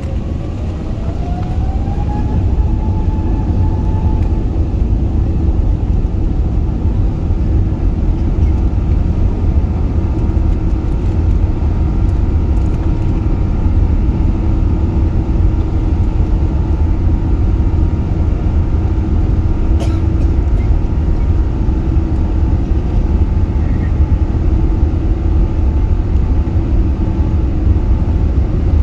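Airbus A380 jet engines heard from inside the cabin, spooling up with a rising whine over the first couple of seconds, then running steadily at high power under a heavy rumble, as thrust is applied for the takeoff roll. A single faint click comes about two-thirds of the way through.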